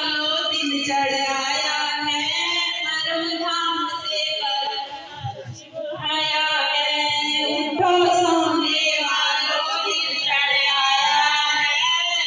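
Women singing a devotional song into handheld microphones, amplified. There is a short break about halfway before the singing resumes.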